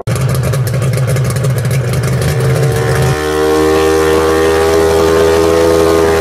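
Small outboard engine of a radio-controlled model powerboat running steadily at high speed while the boat is held at the water's edge, its note shifting slightly about three seconds in.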